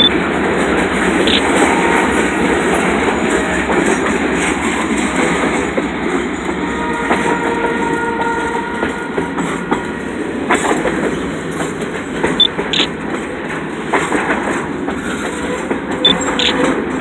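Freight train of container cars rolling past close by: a steady rumble of steel wheels on rail, with clicks over the rail joints and faint wheel squeals around the middle.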